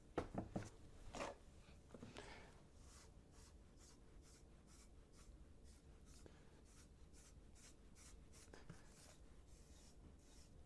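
Damp sponge rubbed in short, light strokes over dried polyfilla filler on a 3D-printed model, a faint scratchy rubbing about three strokes a second, with a few louder strokes in the first two seconds.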